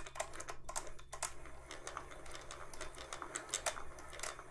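Light, irregular clicking and rubbing from a Singer 401A sewing machine's cam stack and gears as they are turned by hand and wiped with a cloth rag, over a faint steady low hum.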